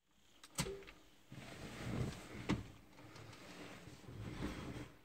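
Small handling noises inside a pickup truck cab before the engine is cranked: a sharp click about half a second in, a knock about two and a half seconds in, and soft shuffling in between.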